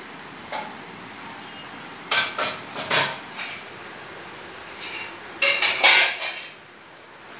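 Steel bowl clinking and knocking as a Lhasa Apso puppy eats from it, its muzzle bumping the bowl. The clinks come in two bunches, about two seconds in and again near the end.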